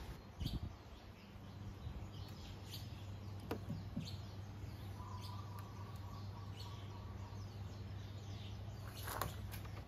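Faint bird chirping over a steady low hum, with two light clicks a few seconds in and a rustle near the end as the plastic scooter side skirt panel is handled.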